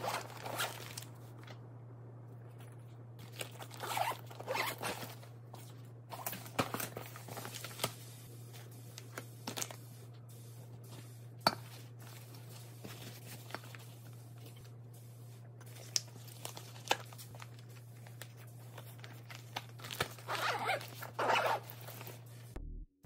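Zippers on insulated fabric lunch bags being run open and shut, with the bags' fabric rustling and short clicks as a container and a small plastic bottle are set inside. A steady low hum runs underneath.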